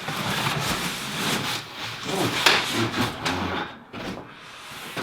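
Cardboard packaging being ripped and pulled off a flat-packed tabletop by hand: irregular tearing and scraping, with a sharp rip about two and a half seconds in, dying down near the end.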